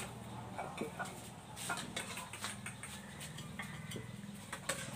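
Scattered clicks and clinks of food being spooned out of a metal pot into plates, with several dogs eating. A low steady hum runs underneath.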